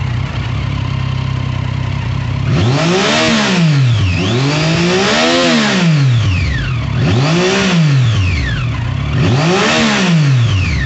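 Triumph Street Triple 675 R's three-cylinder engine idling steadily, then revved four times in neutral while standing, each rev rising to about 8,000 rpm and dropping back to idle, the second held a little longer.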